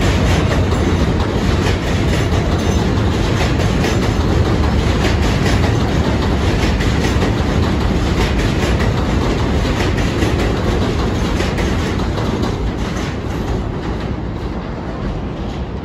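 New York City subway train running on the track, its wheels clacking over the rail joints, the sound growing fainter over the last few seconds.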